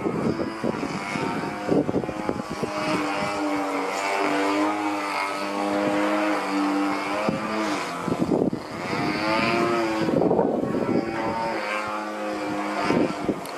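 CRRC 26cc two-stroke gasoline engine of a model aerobatic airplane running in flight. Its buzzing pitch holds steady for a few seconds, then rises and falls several times as the plane manoeuvres.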